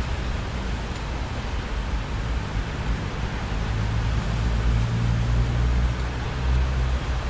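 Steady rain hiss with a low rumble of thunder beneath it. The rumble grows louder about four seconds in.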